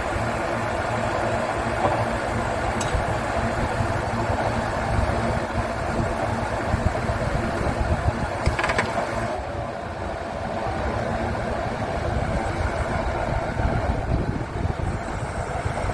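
Scania truck's diesel engine running steadily, powering the hydraulics of its truck-mounted knuckle-boom crane as the boom unfolds. A brief sharp sound stands out about nine seconds in.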